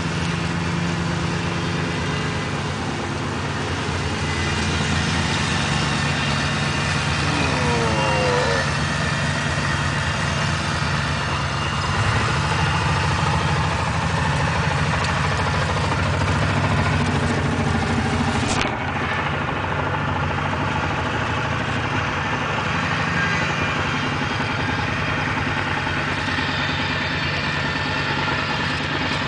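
Ferris zero-turn mower's 33 hp Caterpillar diesel running steadily under load, its 72-inch three-blade deck cutting tall, tough, dry grass.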